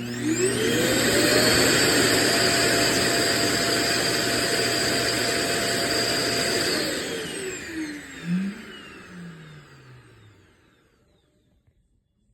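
Vacuum suction motor of a Roomba j7+ self-emptying Clean Base. It spins up with a rising whine, runs with a loud steady rush of air for about six seconds, then winds down with a falling whine and fades out. The sound is typical of the base emptying the robot's dust bin into its bag.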